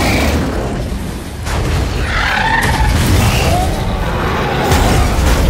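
Film battle sound effects of giant robots fighting monsters: a deep booming rumble with crashing, and a few short gliding tones in the middle.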